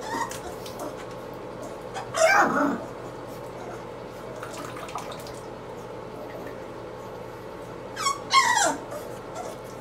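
American Bully puppy crying out twice, each cry under a second with a wavering, bending pitch, while it is rubbed dry in a towel.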